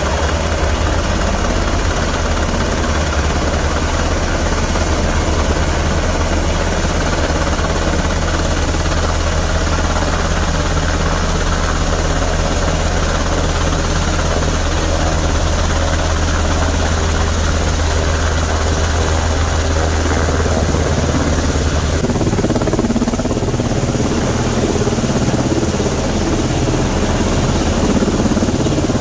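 UH-60M Black Hawk helicopter approaching and hovering close, its main rotor beating steadily over the twin turbines' noise. About three quarters of the way through, the deep rotor throb thins out and a harsher, higher rotor noise takes over as it comes nearer.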